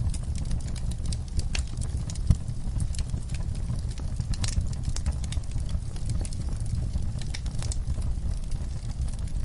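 Wood campfire crackling, with irregular sharp pops and one louder snap about two seconds in, over a steady low rumble.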